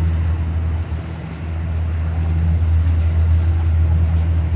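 Motorboat engine running steadily under way, a low even hum that dips briefly about a second in and then comes back up.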